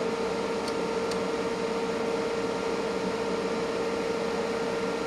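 Steady whir of running bench electronics, with a constant mid-pitched tone over an even hiss, typical of an instrument's cooling fan. Two faint ticks about a second in.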